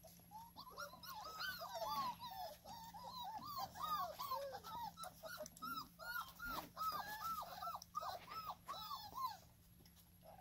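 Puppies whining: a rapid string of short, high whines that rise and fall, several overlapping at times, stopping about nine and a half seconds in.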